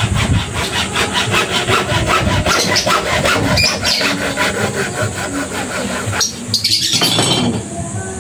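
Hand saw cutting through water pipe for a faucet repair, with quick, even back-and-forth strokes. The sawing stops briefly about six seconds in, runs for about another second, then stops near the end.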